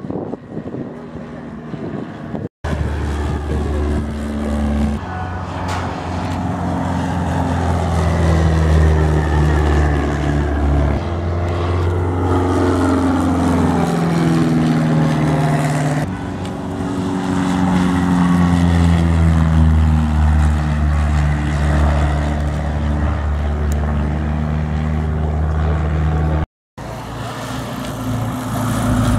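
CAP-4 Paulistinha light aircraft's four-cylinder piston engine and propeller droning as it flies past, the pitch falling each time it passes. The sound cuts out abruptly twice, about two and a half seconds in and near the end.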